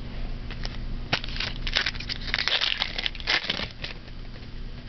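Plastic trading card pack wrapper crinkling and crackling as it is handled, a dense run of crinkles from about a second in until near the end.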